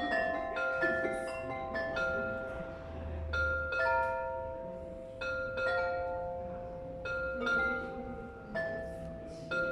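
Porcelain carillon bells (Meissen porcelain) struck from outside by plastic hammers, playing a melody note by note. Each note rings on after its strike.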